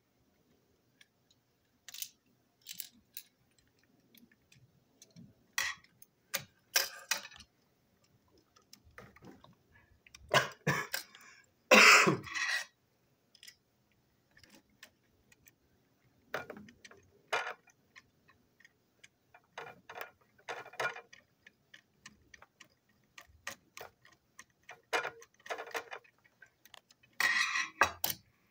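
Small screwdriver and toy locomotive chassis parts being handled: irregular plastic clicks, taps and short rattles, with the loudest clatter about twelve seconds in.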